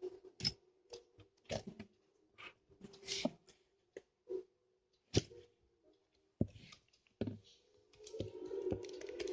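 Hands kneading and pressing sticky homemade milky slime, making irregular wet clicks and squelches, denser and crackling near the end, over a faint steady hum.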